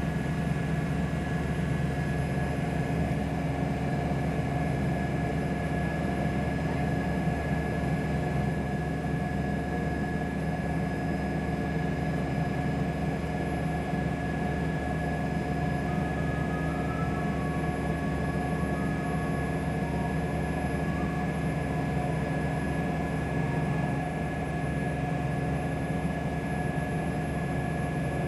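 Passenger ferry boat's engine running steadily under way, with the rush of water from its wake.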